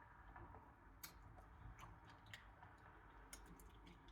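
Near silence with a few faint, scattered mouth clicks from someone chewing food.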